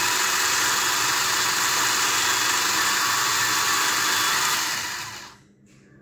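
Electric motor and PTO gear train of a homemade metal RC tractor running at high speed with a steady whir. The whir fades away about five seconds in as the motor winds down and stops.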